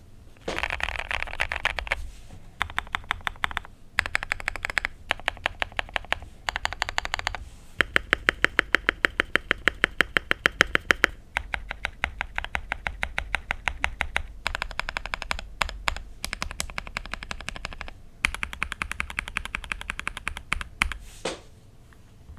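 Typing on a FinalKey V65 R2 65% mechanical keyboard with lubed Gazzew Boba LT linear switches and Akko ASA-profile keycaps. The keystrokes come in bursts of a few seconds with short pauses between them, and a run of rapid, evenly spaced strokes in the middle.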